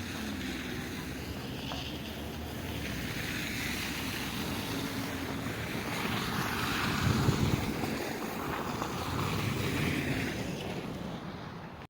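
Road traffic passing, its tyre noise swelling and fading several times as vehicles go by, the loudest and deepest about seven seconds in, with some wind on the microphone.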